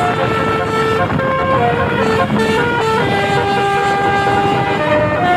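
Basuri 18-note telolet bus horn playing a tune: clear steady tones stepping from note to note, with one long held note in the second half, over steady vehicle noise.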